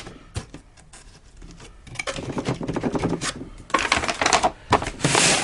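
Handling noise from a cardboard firework cake being turned and held: light clicks and taps, then irregular rustling from about two seconds in.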